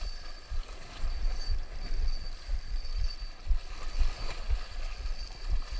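Wind buffeting the microphone: uneven low rumbling gusts, with a faint steady high-pitched tone underneath.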